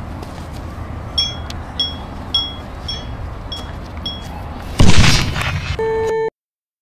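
A grenade timer beeps six times, short high beeps just over half a second apart, then a loud grenade explosion near five seconds in dies away. A steady test-pattern tone follows briefly and cuts off suddenly.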